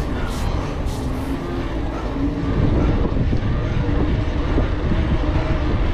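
Wind buffeting the microphone of a handlebar-mounted action camera on a mountain bike moving at speed on asphalt: a steady, heavy rumble with a few light ticks in the first second or so.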